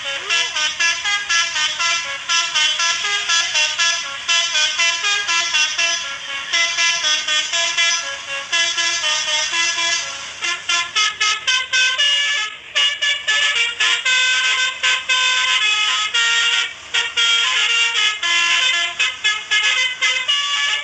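Basuri telolet horn, a multi-tone musical vehicle horn, playing a fast tune of short stepped notes. About halfway through, the notes turn quicker and choppier.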